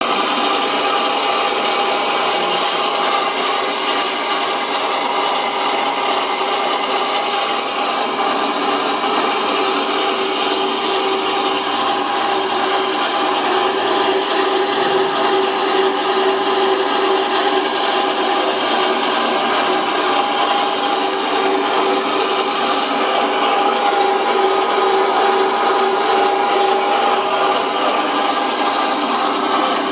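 Portable machine tool running steadily, its motor holding a constant whine over continuous working noise, with no pauses.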